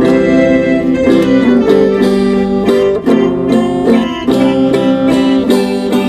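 Instrumental music played by a small group: a plucked string instrument picking quick notes over held chords that change every second or so.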